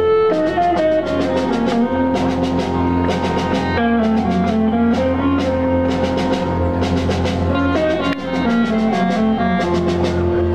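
Live band playing an instrumental passage: clarinet and accordion over electric guitars, bass guitar and a drum kit keeping a steady beat.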